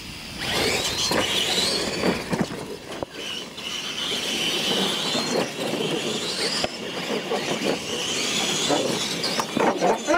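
Two electric radio-controlled monster trucks launching and racing over a dirt course. Their motors and gears give a high-pitched whine that starts about half a second in and rises and falls with the throttle, over the rattle of tyres and chassis on the dirt.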